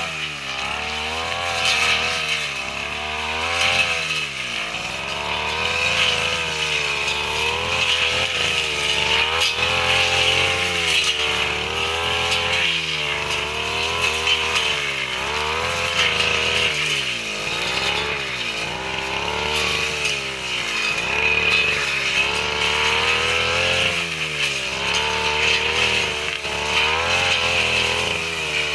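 Small two-stroke brush cutter engine running hard as it cuts grass, its engine speed rising and falling over and over as the cutter is worked.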